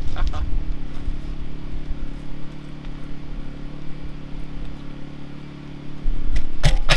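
A steady low mechanical hum like a motor running, with low rumble on the microphone. A few sharp knocks come near the end.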